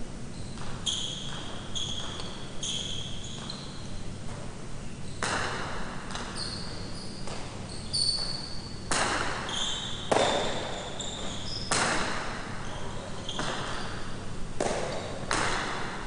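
Jai alai rally: the hard pelota cracks against the wall and the floor and is caught and flung from wicker cestas, a sharp echoing impact every second or two from about five seconds in. Short high squeaks of shoes on the court floor come between the hits.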